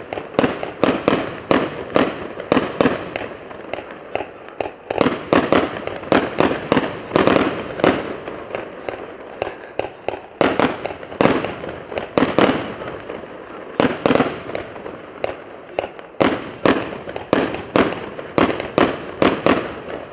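A 150-shot fireworks cake with 0.8-inch tubes firing, its shots coming in quick succession, several a second, without pause.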